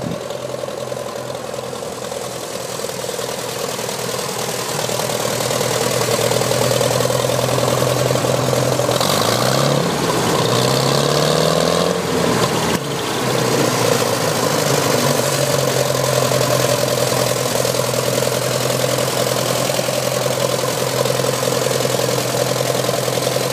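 Ferguson tractor's engine running on TVO (tractor vaporising oil) with a steady beat. A little after halfway the revs rise twice, then drop back to the steady run.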